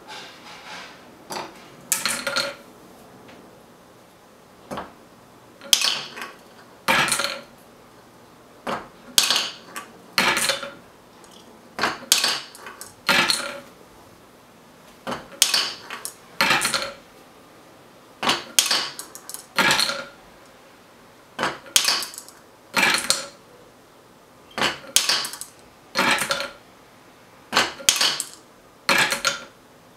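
Glass marbles running through a wooden gravity marble toy: the counterweighted tipping arm swings and marbles clack on wood and clink into a wooden bowl. The clatters come in pairs about a second apart, repeating about every three seconds.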